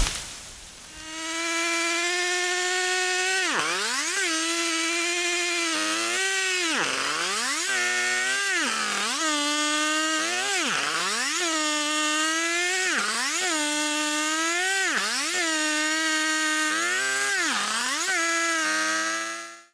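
Husqvarna chainsaw running at high revs, bucking a birch log. Its pitch drops sharply as the chain bites into the wood and climbs back again, over and over, about every one and a half to two seconds.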